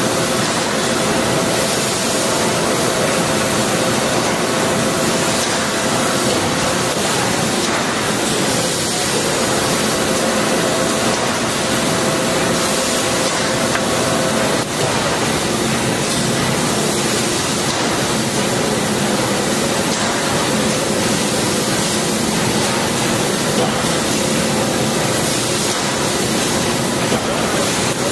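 Spring-winding lathe running as heavy round steel wire is cold wound into a large torsion spring: a steady, loud, hiss-like machine noise with a faint hum that shifts about halfway through.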